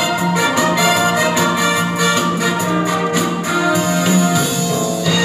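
Orchestral stage-musical music with brass, played to a quick, steady beat that drops out about two-thirds of the way through, leaving held chords.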